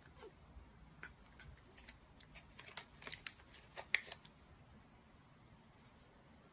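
Faint run of small clicks and smacks from a cat's mouth as it licks and smacks its lips at a finger touching them, thickest about halfway through.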